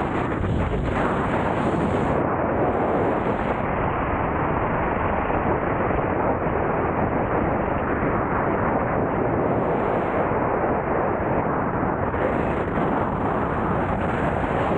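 Steady, loud wind rushing and buffeting over the camera microphone as it moves along with an electric unicycle at riding speed.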